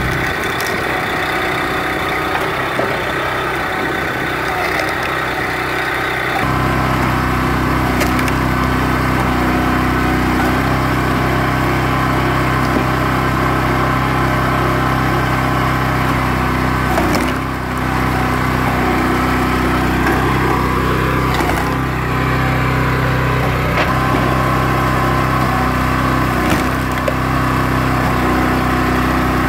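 Small gas engine on a hydraulic log splitter running steadily as the ram cycles, with a few sharp cracks as logs split. The engine hum becomes stronger and steadier about six seconds in.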